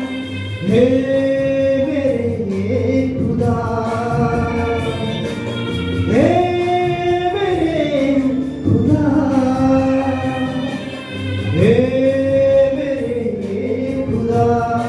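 Congregational worship singing of a Hindi Christian song, led by a man singing into a microphone over the church PA. Long held sung lines, each opening with an upward swoop, come round about every five and a half seconds.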